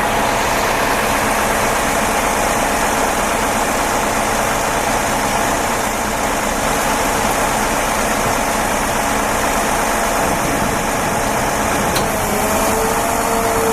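Concrete pump truck's engine running steadily at idle, with a steady higher whine coming in near the end as the pump gets ready to start.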